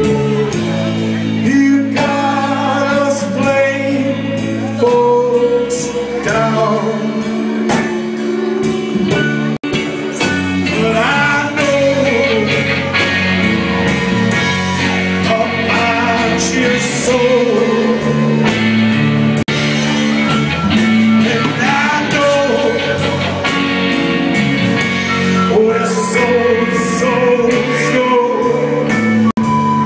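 Live rock band playing loud through a venue PA, with electric guitars, bass, drums and a sung vocal line, heard from among the audience.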